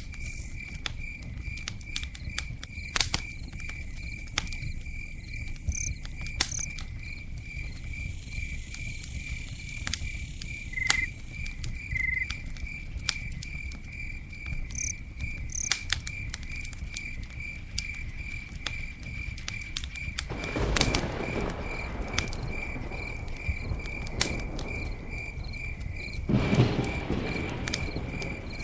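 Campfire crackling with scattered sharp pops over a low rumble of burning, while a cricket chirps steadily about three times a second. Two louder rushing surges come about two thirds of the way in and again near the end.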